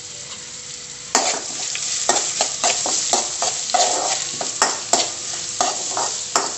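Chopped onions, urad dal and curry leaves sizzling in hot oil in a metal kadai, with a metal spoon scraping and clinking against the pan as they are stirred from about a second in.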